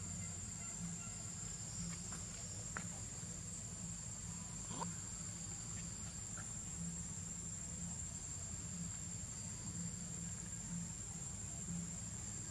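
Insects droning in one steady high-pitched tone, with a few faint short chirps about three and five seconds in.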